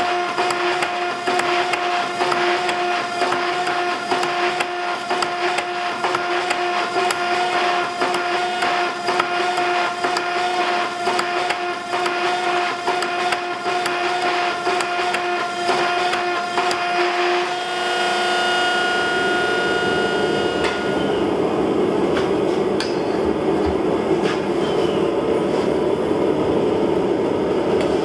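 12-ton Coal Ironworks electric-hydraulic forging press running with a steady hum while it presses a texture into a hot round steel bar between texture dies. About two-thirds of the way through, the hum gives way to a steady noise of a different kind.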